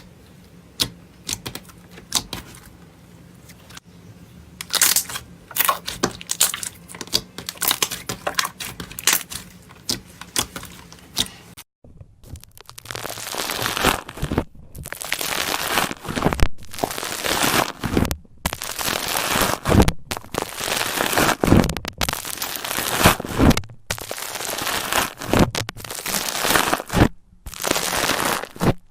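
Slime worked by hand for the microphone: at first scattered sharp clicks and pops over a faint hum. About twelve seconds in it changes to louder, repeated squishing strokes, about one a second.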